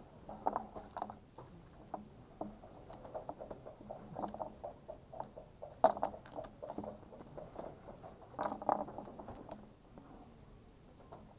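Backgammon checkers clicking and clattering against the board and each other as they are set out in their starting positions for a new game. A sharper clack comes about six seconds in and a cluster of clacks shortly after eight seconds.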